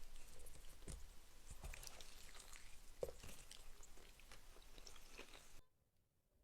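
Close-miked mouth sounds of food being chewed and bitten, with many small crackling, squishy clicks. The sound cuts off abruptly near the end, leaving faint room tone.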